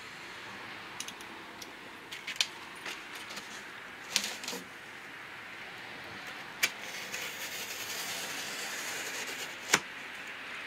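Unpacking noises: a cardboard box and its plastic wrapping being handled, with scattered clicks and knocks and rustling.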